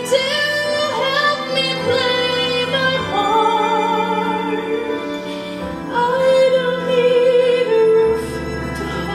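A woman singing a slow musical-theatre ballad, holding long notes with vibrato, over sustained instrumental accompaniment.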